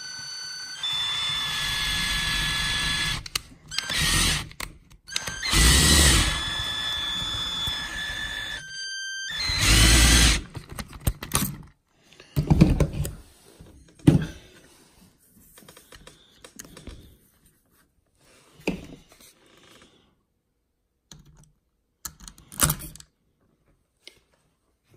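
Electric screwdriver running in spells with a whine that shifts in pitch, louder about 4, 6 and 10 seconds in, while driving screws on an RC truggy's chassis. After that come scattered sharp clicks and knocks of parts and tools being handled.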